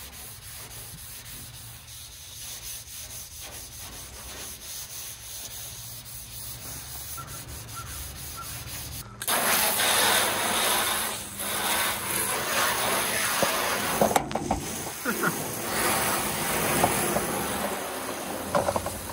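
Sponge scrubbing powdered Comet cleanser over the oxidized old paint of a 1964 Ford F100: a continuous gritty rubbing that grows louder about halfway through, with a brief break a few seconds later.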